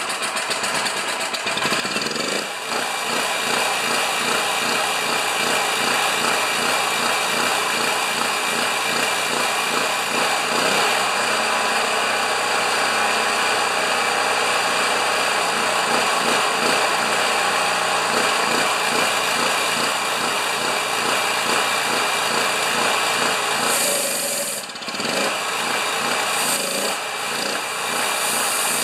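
Champion 4000-watt generator's 196cc single-cylinder engine running steadily just after a pull-start. The generator is on test because it has been quitting after 30 seconds to a minute under load.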